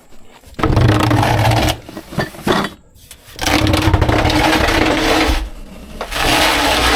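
Loud scraping and rubbing in several long strokes, wood against wood and a body moving over rough surfaces, as the crawl-space access door is worked open and someone climbs through it.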